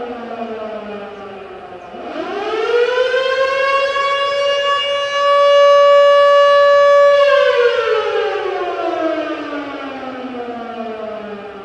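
Outdoor warning siren sounding its wail cycle for a monthly test. The pitch falls away, climbs again about two seconds in, holds steady and loudest for a couple of seconds, then slowly winds down, and starts climbing again near the end.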